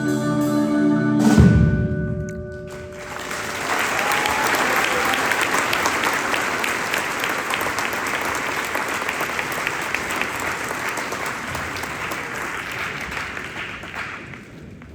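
Concert band ends a piece on a held chord with mallet percussion, closing on one loud accent about a second and a half in. The audience then applauds for about ten seconds, fading near the end.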